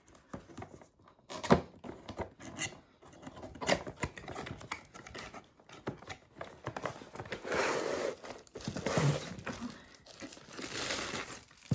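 Hairbrush packaging being torn and crinkled open by hand: irregular rustling and crackling with scattered clicks, loudest in two stretches in the second half.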